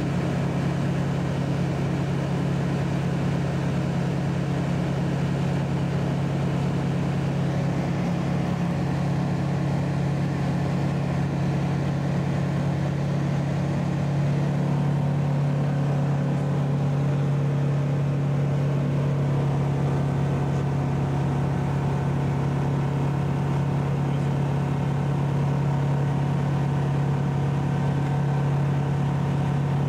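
Ultralight aircraft's engine and propeller running steadily in flight, heard from inside the cockpit as a low, even hum. It gets slightly louder about halfway through.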